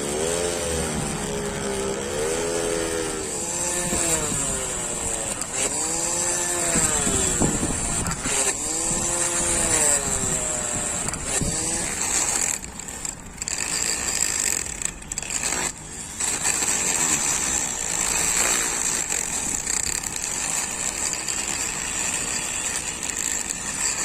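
Electric motor of a homemade drill/angle grinder running. In the first half its pitch swings up and down over and over as the speed changes; after about twelve seconds the sound turns rougher and noisier, with several short drops in level.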